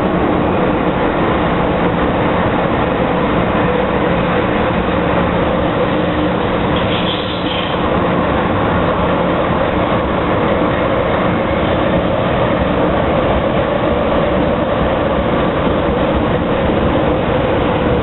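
Hong Kong MTR M-Train (Metro-Cammell electric multiple unit) running between stations, heard from on board: steady running noise with a held hum. A short high squeal comes about seven seconds in.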